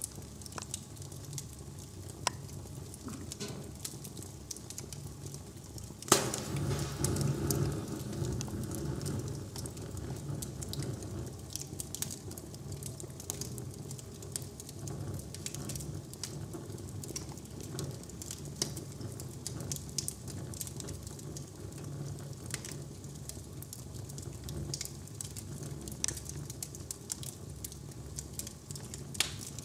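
Wood fire crackling in a newly built fireplace during its trial firing, with scattered sharp pops. One loud crack comes about six seconds in, after which the fire is louder for a few seconds.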